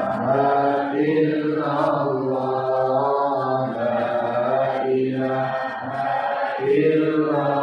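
Islamic dhikr chanted by a voice in long, slow, melodic phrases, repeated with brief pauses between them.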